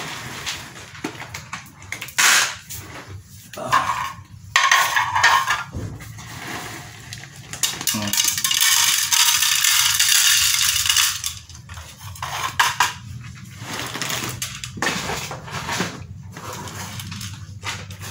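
Dry cat kibble shaken out of a plastic bag and rattling into a plastic feeding tray, with the bag crinkling; irregular short pours, then one longer pour of about three seconds near the middle.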